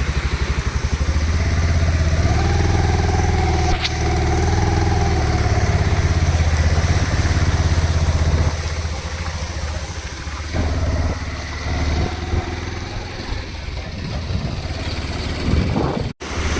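Motorcycle engine running with a rapid, even exhaust beat, steady and strong at first, then lighter and less even after about eight seconds as the throttle eases.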